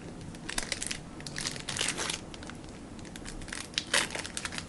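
Trading cards and their packaging being handled: irregular bursts of crinkling and small clicks as cards are flipped and shuffled.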